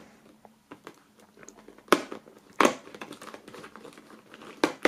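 Cardboard advent calendar doors being pressed open and foil-wrapped puzzle pieces crinkling in the hand. There are scattered small clicks and crackles, with sharp cracks about two seconds in, again shortly after, and near the end.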